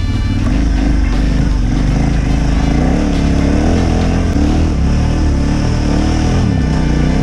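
Dirt bike engine running under changing throttle, its pitch rising and falling over and over as it is ridden along a rough trail.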